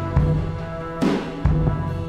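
Background music: low drum beats under steady held tones, with a soft swell about a second in.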